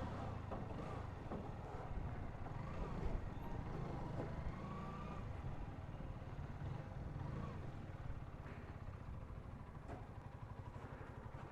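Honda CBR125's single-cylinder four-stroke engine running steadily at low revs.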